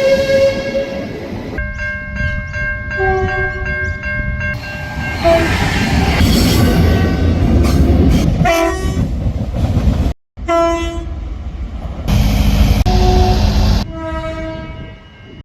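A series of train horns, short and long blasts each sounding several notes at once, over the rumble of trains running on the track. The clips change abruptly several times, with a brief break about ten seconds in.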